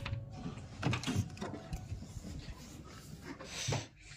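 Electronic keycard door lock releasing, then the handle and door being worked open: a run of mechanical clicks and knocks.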